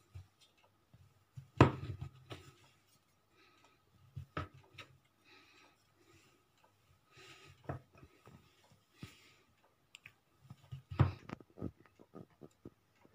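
Kitchen knife pressed down through soft yeast dough and knocking on a stone countertop with each cut: a handful of sharp knocks a few seconds apart, the loudest soon after the start, with softer taps and rustles between.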